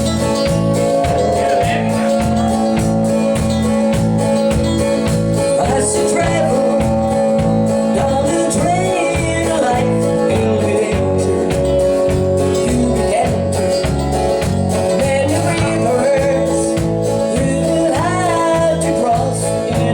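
Live country band playing, a steady bass-and-drum beat under held chords, with a lead melody line coming in about six seconds in.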